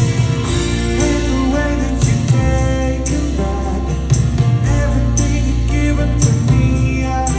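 Live rock band playing a slow song, with a sung lead vocal over bass and drums, cymbal strokes every second or two.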